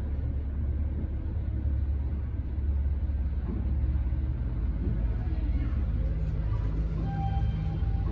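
Ride noise inside a 2006 Otis traction elevator car climbing fast: a steady low rumble as the car travels up the hoistway. A faint steady tone comes in near the end.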